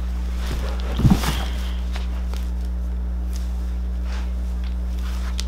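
A steady low hum, with a soft thump about a second in and a few light footsteps.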